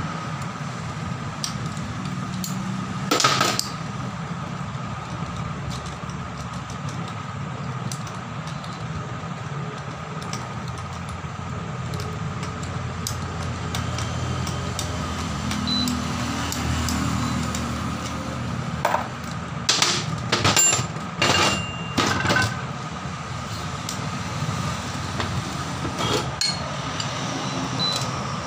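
Metal hand tools clinking and knocking against the steel body of a large air impact wrench as its bolts are worked with a long L-shaped hex key. There are a few sharp clanks about 3 seconds in and a cluster of clinks about 20 to 22 seconds in, over a steady low background hum.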